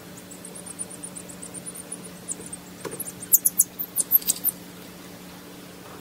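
Thin, high-pitched peeping of a chick hatching from its egg. A quick run of faint cheeps comes first, then a few louder, sharper peeps between about three and four and a half seconds in, over a faint steady low hum.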